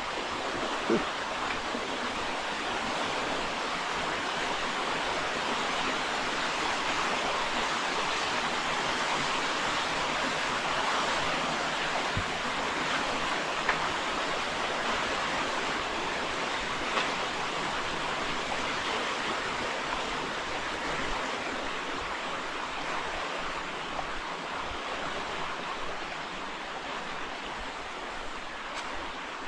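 Steady rushing of flowing water, an even hiss that swells slightly through the middle and eases toward the end, with a few brief clicks.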